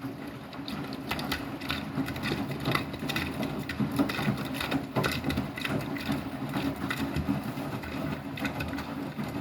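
Beko WTK104121W washing machine starting up suddenly and running with a steady low motor hum and irregular rattling and clicking.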